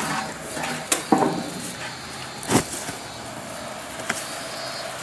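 A few sharp knocks and clatters, the loudest about two and a half seconds in, over a steady outdoor background.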